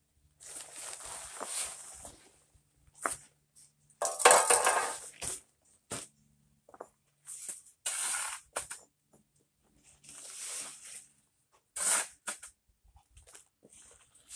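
Steel shovel scraping and scooping paver base (crushed stone and grit), about five gritty scoops with the loudest about four seconds in, and a few light clicks between.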